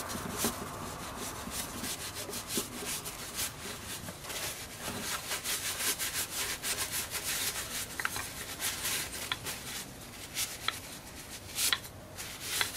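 A paper towel rubbing over an oiled walnut wooden toy, wiping off excess mineral oil, with scattered light clicks and knocks as the wood is handled.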